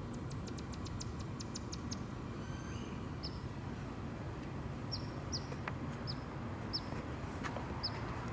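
Small bird calling: a quick run of about ten high ticks in the first two seconds, then short high chirps about once a second, over a steady low rumble.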